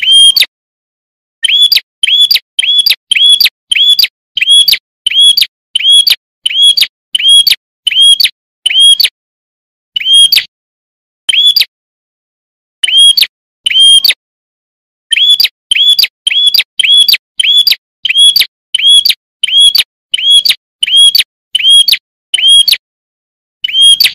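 A prinia (prenjak) calling: a long run of short, identical sharp chirps, about two a second, broken by a few short pauses in the middle.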